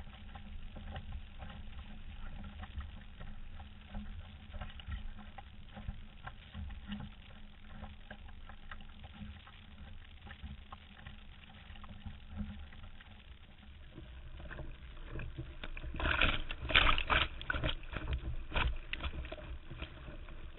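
Sailing canoe under way in gusty wind: steady wind rumble on the boat-mounted microphone with water washing along the hull and small knocks and splashes. About sixteen seconds in, a burst of loud knocks and splashing as the camera is jostled and spray reaches it.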